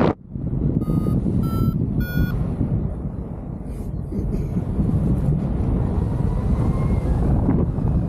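Wind buffeting the microphone in flight under a paraglider. About a second in, a flight variometer gives three short beeps, each a little higher in pitch than the last: the climb tone that signals rising air.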